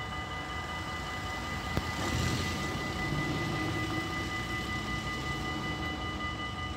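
Distant, steady rumble of an approaching train, swelling slightly from about two seconds in, with a few steady high tones over it and a single light click near two seconds.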